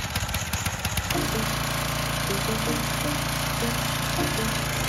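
Gasoline pressure washer running, its small engine pulsing until about a second in, then settling into a steady drone as the trigger is pulled and the pump loads up, with the hiss of the high-pressure water jet spraying a dirt bike.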